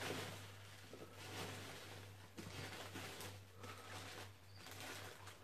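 Faint rustling and a few light knocks as packaging and containers are handled, over a low steady hum.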